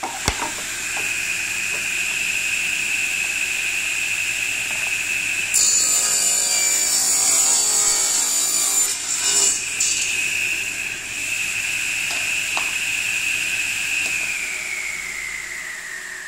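Table saw with a freshly sharpened tungsten-carbide-tipped blade switching on and running with a steady whine, ripping a pine board for about four seconds in the middle. It is then switched off, its whine falling in pitch as the blade spins down near the end.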